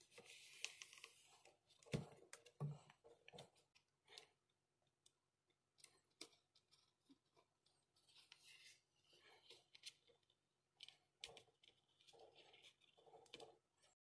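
Faint, scattered clicks and light taps as the aluminium bottom cover of an HP Spectre x360 laptop is pressed along its edges and seated by hand, with a soft rub of hands on the panel in the first second.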